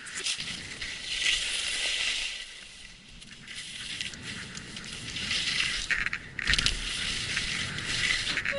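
Skis scraping and hissing over snow during a downhill run, the sound swelling and fading in loudness.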